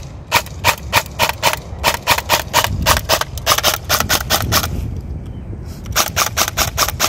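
Beretta ARX 160 airsoft electric gun (AEG) firing rapid single shots, about four a second, each a sharp mechanical clack of the gearbox cycling. The shots stop briefly about five seconds in, then start again for about another second. The shooter says it sounds like it's not feeding the BBs right.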